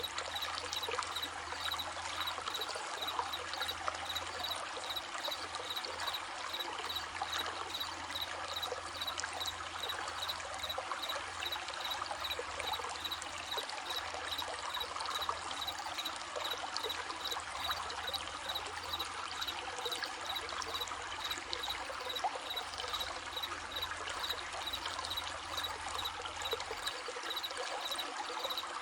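A stream running steadily, with the even rush and trickle of flowing water. Above it, crickets chirp in a steady, regular pulse a few times a second.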